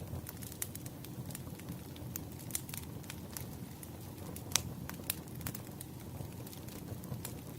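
Campfire crackling: irregular sharp pops and snaps, a louder one about four and a half seconds in, over a low steady rumble.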